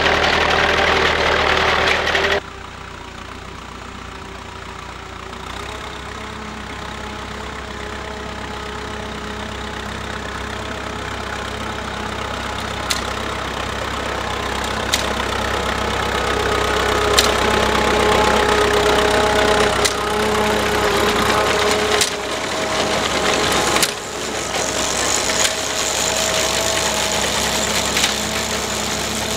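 1939 Fordson N tractor's four-cylinder engine running steadily under load as it pulls a reaper-binder through oats, with the binder's mechanism clattering. The sound drops abruptly about two seconds in, then the engine grows steadily louder as the tractor approaches. In the second half sharp clacks from the binder come every two seconds or so.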